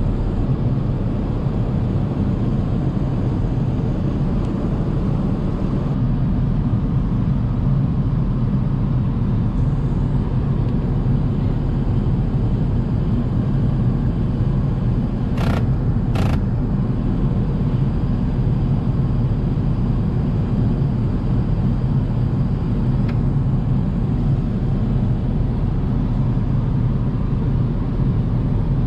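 Steady low rumble of an Airbus A380's cabin in flight: airflow and engine noise heard inside the cabin. Two short clicks come about halfway through.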